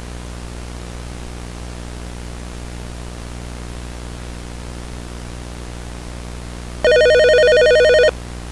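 A telephone ringing: one loud electronic ring begins about seven seconds in and lasts just over a second, over a steady low hum.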